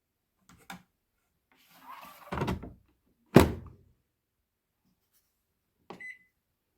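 A small click and a rustling slide, then one loud thunk of a door or lid shutting, and near the end a button click with a short beep from a household appliance.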